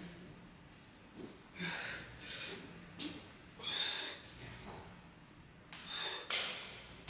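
A woman breathing hard through an abdominal exercise: forceful, hissing exhalations in bursts a second or two apart, one for each repetition.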